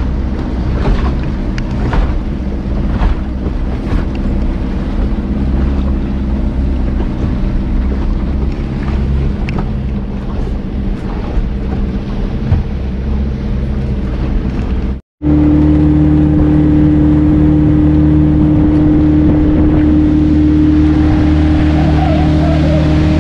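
Motorboat engine running at speed across choppy water, with the hull knocking on the waves in the first few seconds. After a brief cut about 15 seconds in, the engine runs on steadily with a clear, constant-pitched hum.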